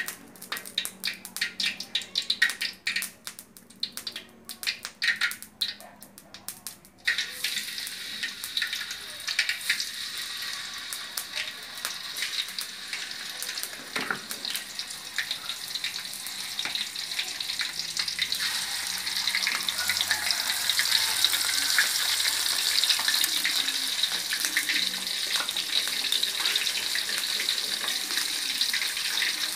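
Small whole fish frying in hot oil in an aluminium wok. Scattered crackling gives way, about seven seconds in, to a steady sizzle as the fish go into the oil. The sizzle grows a little louder toward the end, with a single knock near the middle.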